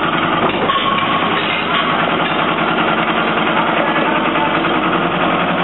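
An engine running steadily, with a dense, rattling sound and no change in speed.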